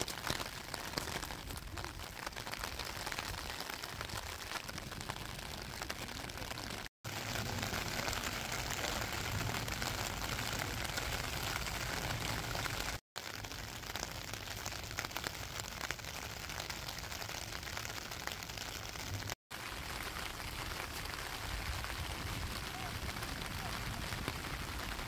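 Steady rain, an even hiss of falling drops, heard in several short takes separated by three brief dropouts. In the last take the rain falls on a clear plastic umbrella held over the microphone.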